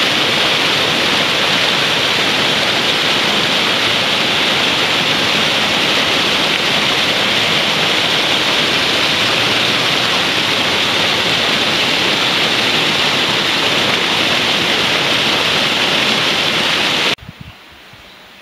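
White water of a mountain torrent cascading into a pool: a loud, steady rush of water. It cuts off suddenly near the end.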